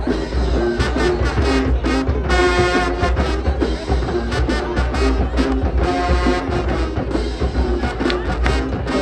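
High school marching band playing: brass section sounding held, punchy chords over steady drums.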